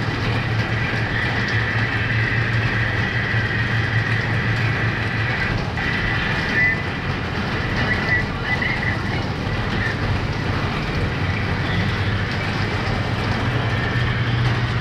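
Heavy rain pouring down, with runoff streaming off a roof edge and splashing onto the ground. A steady low hum runs underneath.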